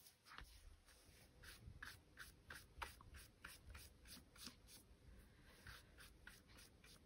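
Faint strokes of a paintbrush laying wet watercolour paint across card, many short irregular strokes.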